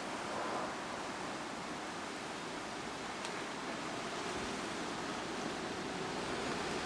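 Steady wind blowing, an even rushing hiss.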